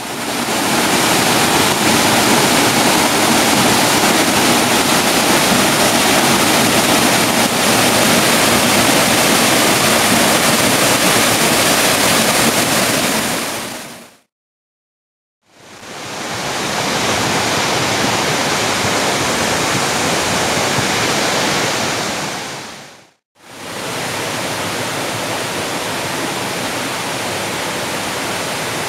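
Waterfall: a steady rush of falling water, loud and even. It fades out to a second or so of silence about halfway through, then back in, with a short dip about two-thirds of the way through.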